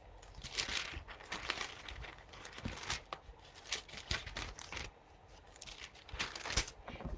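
Thin Bible pages being leafed through: a run of soft, irregular paper rustles and crinkles.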